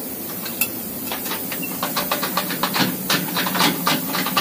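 A rapid run of light clicks and taps, several a second, starting about two seconds in after a single click, over a steady hiss and hum of machine-shop background.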